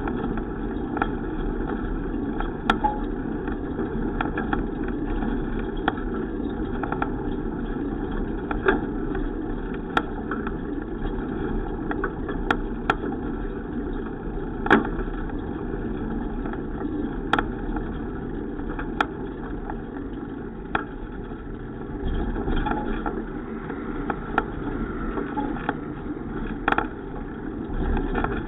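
Steady rumble and hum of a bicycle being ridden, with scattered sharp clicks and ticks.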